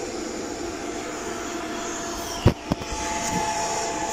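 Steady fan-like room hum with a faint steady whine. About two and a half seconds in, two sharp knocks come a fraction of a second apart, from the charge controller or a tool being handled on the table.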